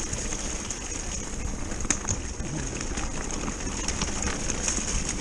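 An electric mountain bike rolls fast down a loose gravel forest track. Its tyres crunch and rumble over the stones and the bike rattles, with a sharp knock about two seconds in, over steady wind buffeting on the handlebar microphone.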